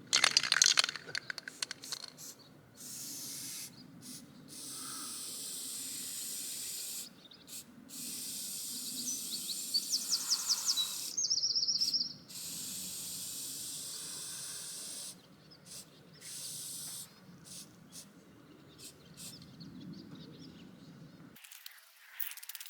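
Aerosol can of black spray paint hissing in repeated bursts of one to four seconds with short pauses between. A quick clatter comes in the first second or so.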